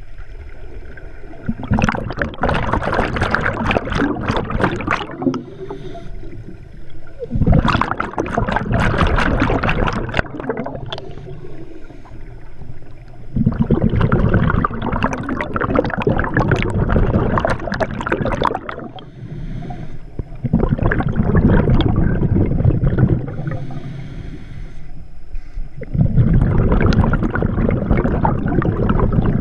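Scuba diver breathing through a regulator underwater: exhaled bubbles come in bursts of two to five seconds, five times, with quieter gaps between for the inhalations.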